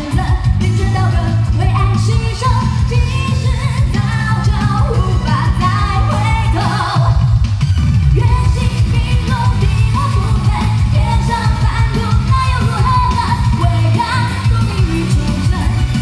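A woman singing live into a microphone over loud pop backing music with a heavy, steady bass beat.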